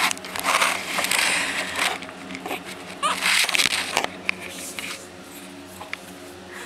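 Chihuahua puppy nosing and sniffing right at the microphone: bursts of rustling, snuffling noise and small knocks, with two brief high squeaks near the middle.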